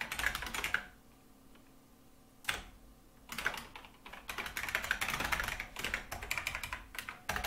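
Computer keyboard typing: a short run of keystrokes, a pause of about two seconds, a single keystroke, then fast, steady typing from about three seconds in.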